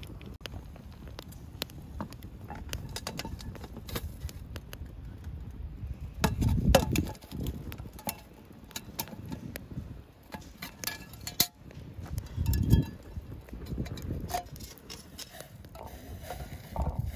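Metal camp cookware and utensils clinking and tapping in many small irregular clicks, with two louder low bumps about six and twelve seconds in.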